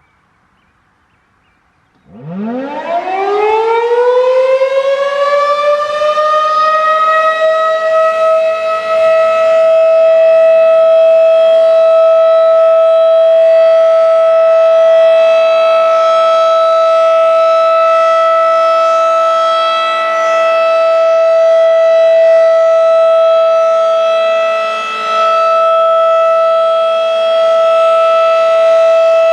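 Federal Signal 2001-SRNB electromechanical outdoor warning siren winding up from standstill about two seconds in, its pitch rising quickly and then levelling off into one loud, steady tone. This is a test of a nuclear power plant's public warning siren.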